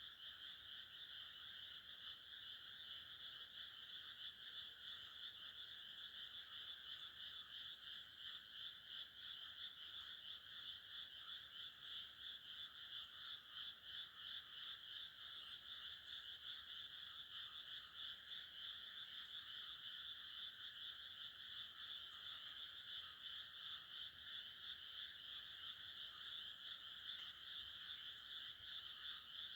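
Faint, unbroken chorus of many frogs calling over one another in a flooded rice paddy, a dense steady rattling croak with no pauses.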